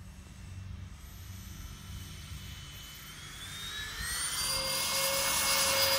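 Twin 80 mm electric ducted fans of a Freewing A-10 RC jet spooling up for takeoff: a whine starts about three seconds in, rises in pitch and grows loud, then holds steady at high power near the end.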